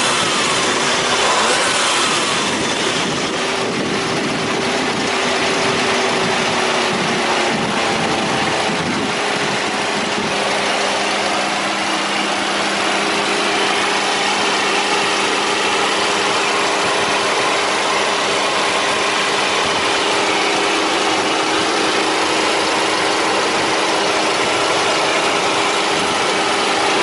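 Car engine idling, its pitch shifting up and down in the first several seconds, then settling into a steady hum from about ten seconds in.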